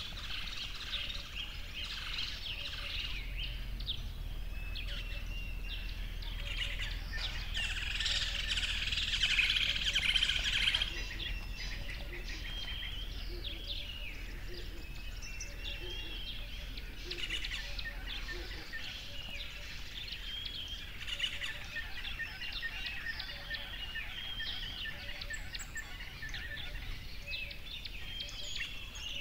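Many birds chirping and calling at once in short, quick notes, thickest about a third of the way in. A low rumble underneath stops a little after halfway.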